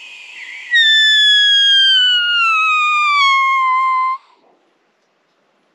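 Sika stag call: one loud, clear whistle that falls steadily in pitch for about three and a half seconds, starting about a second in after a short rising squeal.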